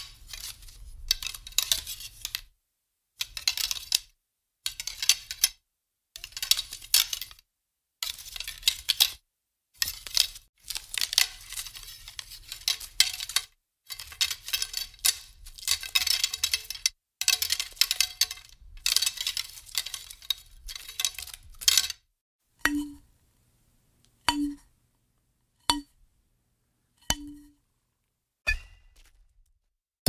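Metal arrows being handled, their shafts clattering and clinking against one another in spells of a second or two. Over the last several seconds come a few separate single clinks, each with a short ring.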